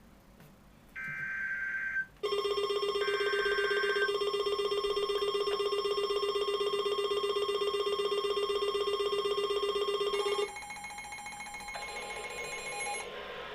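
Emergency Alert System broadcast: two short buzzing data bursts of the alert header, then a loud, steady electronic attention tone for about eight seconds that stops abruptly, followed by a quieter electronic tone.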